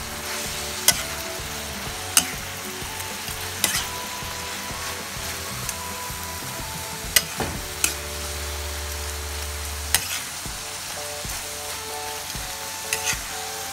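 Eggplant and dried fish sizzling in a frying pan as they are stirred and turned with a metal spatula, which clacks sharply against the pan every second or two.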